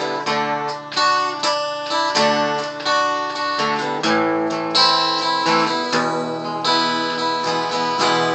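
Acoustic guitar strumming chords at about one to two strums a second, with no singing over it.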